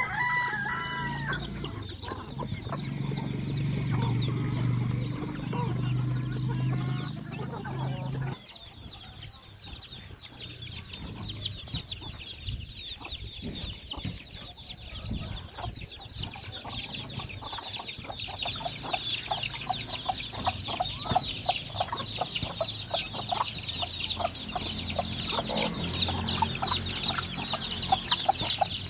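Free-range native chickens clucking, with young birds keeping up a quick high-pitched peeping chatter that grows busier through the second half. A low steady hum sits under the first eight seconds and cuts off suddenly.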